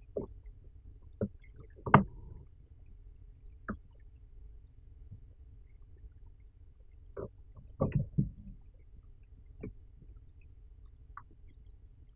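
Scattered knocks and clatter of fishing gear being handled against a fishing kayak, loudest about two seconds in, with a cluster of knocks around eight seconds, over a low steady rumble.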